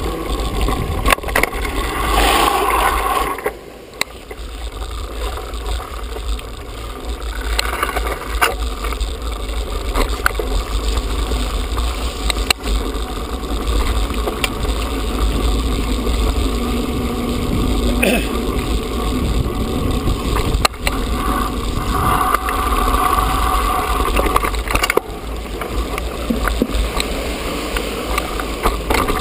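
Mountain bike ridden over a rough stony and gravel track, its tyres crunching and frame and parts rattling with frequent sharp knocks, under heavy wind rumble on the helmet or bar-mounted camera's microphone. The rumble eases briefly about four seconds in.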